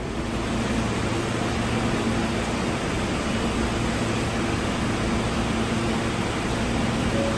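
R160B subway train standing at the platform with its doors open: a steady hiss of the car's air-conditioning and equipment running, with a faint low hum under it.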